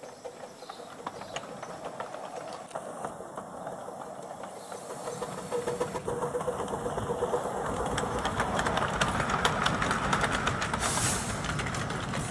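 Miniature steam locomotive running along the track: steam hissing with a run of sharp clicks from the engine and wheels, getting steadily louder as it comes closer.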